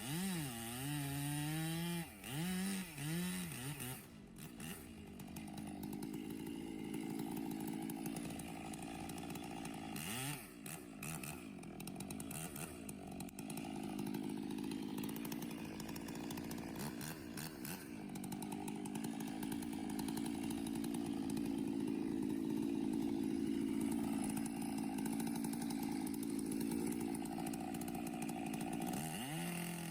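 Chainsaw revving up and down a few times, then running steadily under load as it cuts into a tree trunk. The revs swing again briefly about ten seconds in and near the end.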